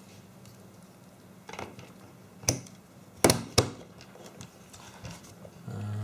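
Hands handling a plastic plug and jumper wires: a few sharp clicks of plastic on plastic, the loudest two close together a little past the middle.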